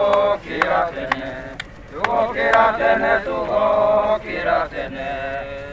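Several men's voices chanting together in held, sung notes, with a few sharp knocks in the first two seconds.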